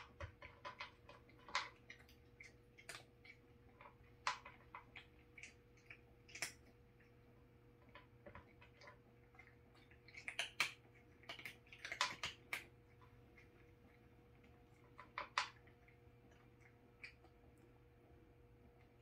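Cat crunching dry dog kibble at the tray of a gumball-machine-style food dispenser: irregular crisp crunches and clicks, thickest about ten to thirteen seconds in, then tapering off.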